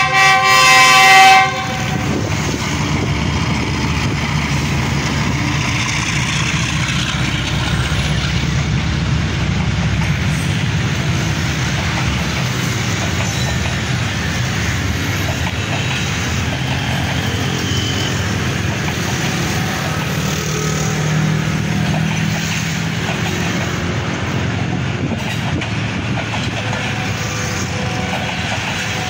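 Diesel locomotive of a passenger express sounding its horn at the start, the blast broken once and lasting about a second and a half. Then the steady rumble of a long rake of passenger coaches rolling past on the track.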